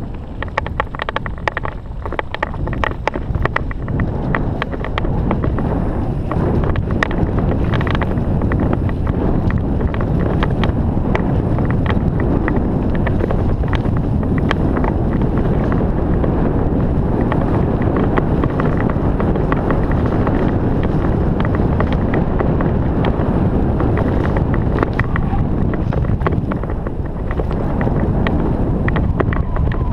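Wind rushing over a helmet camera's microphone as a mountain bike descends a trail, with frequent clicks and rattles from the bike over rough ground. The rush grows louder about five seconds in as speed picks up.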